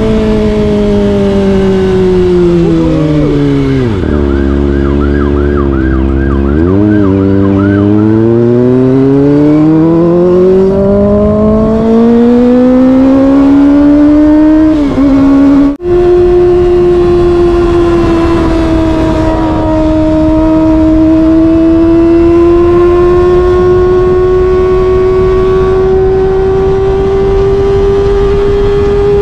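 Kawasaki ZX-25R four-cylinder engine heard from the rider's seat: the revs fall to a low rumble as the bike slows, then climb steadily under acceleration, cut out briefly for a gear change about halfway through, and hold steady at high revs while cruising.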